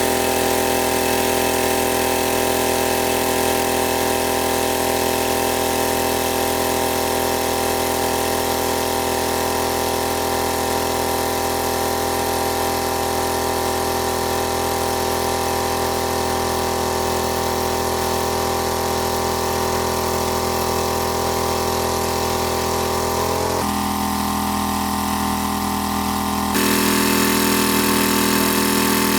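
A small engine running steadily at an even speed. About three-quarters of the way through the pitch dips slightly, then near the end the sound jumps abruptly louder.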